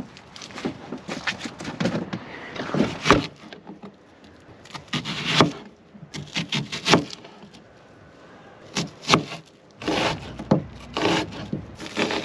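Kitchen knife slicing an onion on a plastic cutting board: repeated sharp knife taps and scraping strokes, in short bursts with pauses between them.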